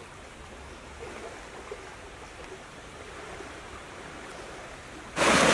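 Low, gentle splashing and lapping of river water as a Muscovy duck swims and paddles across the surface. About five seconds in, loud, heavy splashing breaks in abruptly.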